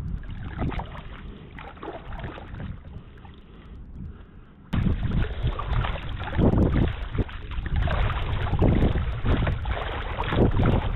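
Kayak paddle strokes and water splashing and lapping against the hull, under wind buffeting the microphone. About five seconds in, the wind rumble jumps suddenly louder and stays strong, with repeated surges.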